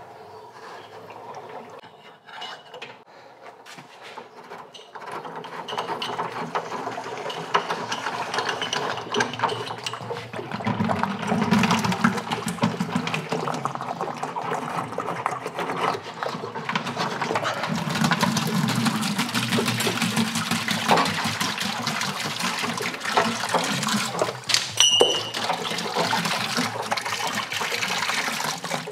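Water gushing and splashing out of the element port of an undrained electric water heater tank as the old heating element is unscrewed, pouring into a bucket below. It starts faintly and grows loud about five seconds in, running on steadily, with a few small clicks before it.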